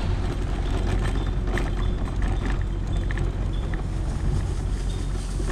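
Electric mobility scooter driving along an asphalt road: a steady low motor hum and tyre noise, with wind on the microphone.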